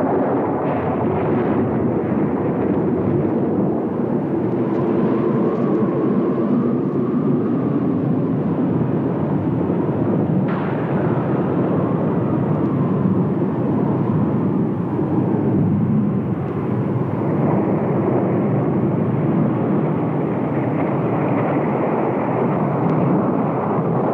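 Roar of a tornado: a loud, steady rush of wind and rumble, with a faint howl that wavers in pitch.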